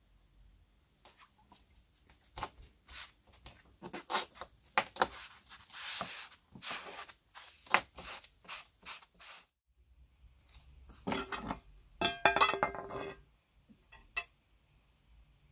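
A sponge dabbing and rubbing dark finish into a leather strap, a long run of irregular soft scuffs and taps. After a short break, light metal clinks and rattles ring out about two seconds in a row as sheet-metal parts are handled.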